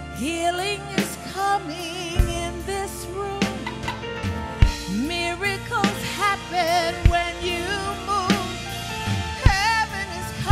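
Live gospel worship music: a singer with heavy vibrato over held keyboard chords, with a drum kit striking about every two and a half seconds.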